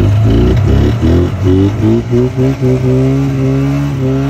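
Snowmobile engine running, revved in a quick series of short throttle blips that run together into a steady, even run.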